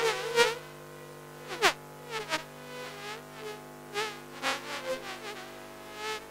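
Sound-art composition built from electric toothbrush buzzing, treated to evoke a swarm of bees: a steady layered hum with buzzing sweeps that dip and rise in pitch as if passing by, the sharpest two in the first two seconds.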